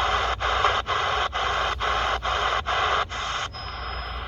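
C. Crane CC Skywave SSB portable shortwave receiver being stepped across the band: a burst of static hiss at each frequency step, with a brief mute between steps, about two a second. The stepping stops about three and a half seconds in, leaving softer hiss with a thin high whistle on an empty carrier.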